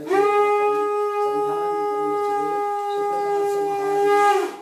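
Conch shell (shankh) blown in one long, steady note of about four and a half seconds. The note slides up slightly as it starts and dips in pitch as it cuts off.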